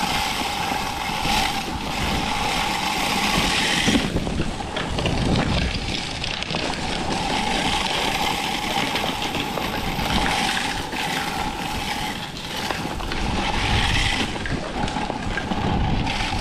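Walk-behind push salt spreader running across pavement, a steady whine with a couple of short breaks over a hiss of scattering salt, while strong wind buffets the microphone.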